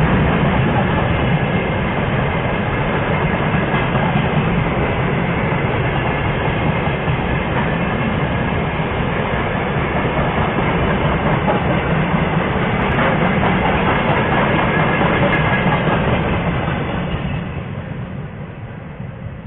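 Freight train of rail tank wagons rolling past close by, a steady heavy rumble of wheels on the rails. It fades away near the end as the last wagon goes by.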